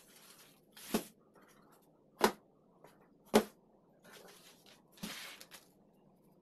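Short sharp slaps, three of them about a second apart, with brief soft plastic rustles between, as parcels in plastic mailers and small cardboard boxes land one by one on a wooden table.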